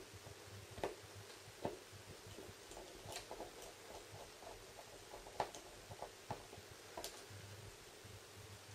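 Faint, scattered clicks and ticks of a small screwdriver working the tiny bezel screws into a Samsung Galaxy S4's frame, metal tool on screw heads and frame, with a run of quicker ticks about three seconds in.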